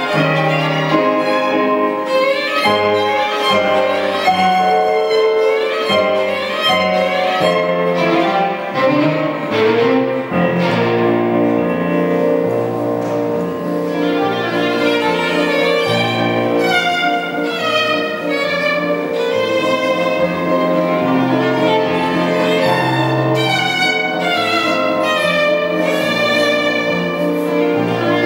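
Violin playing a melody with vibrato, accompanied by an electronic keyboard holding chords and low bass notes.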